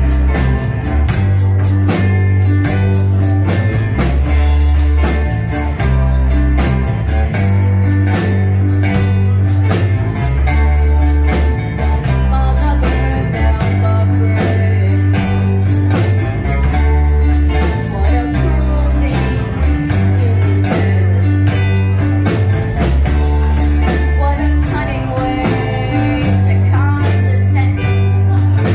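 Live rock band playing through a PA: drum kit keeping a steady beat, electric bass, electric guitar and keyboard, with a young female lead singer singing over them.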